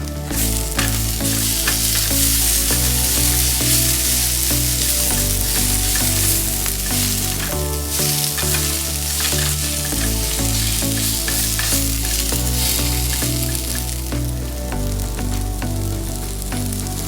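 Seasoned tofu frying in a pan, a steady sizzle of hot oil.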